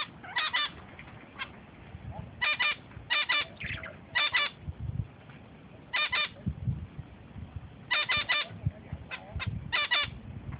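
A bird giving short, honking calls in quick groups of two or three, repeated every second or two.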